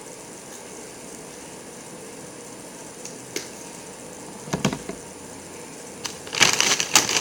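Quiet room tone with a single click, a short clatter a little past halfway, then a burst of crackling and crunching near the end, as snacks and their packaging are handled.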